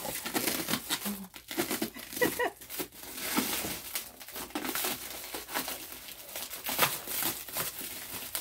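Clear plastic stretch wrap crinkling and crackling as it is cut with a knife and pulled away by hand.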